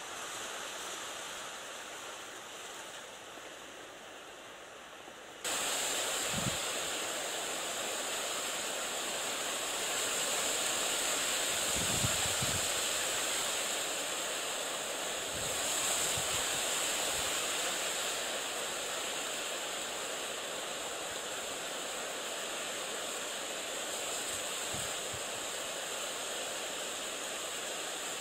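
Steady wind noise, wind rushing and buffeting the microphone. It turns abruptly louder about five seconds in, and a few brief low gust thumps come through.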